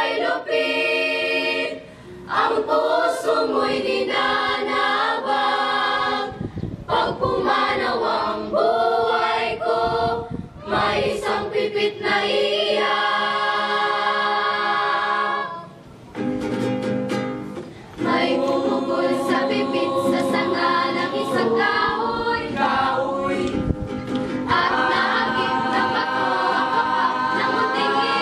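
Mixed choir of teenage girls and boys singing in harmony under a conductor, in phrases broken by short pauses, with a longer break of about two seconds past the middle.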